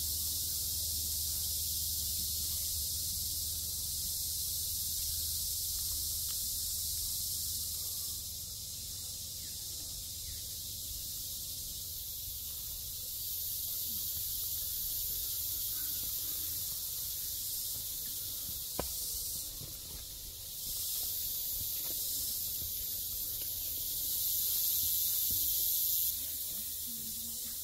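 A steady high-pitched hiss that shifts in level several times, over a low hum, with one short click about two-thirds of the way through.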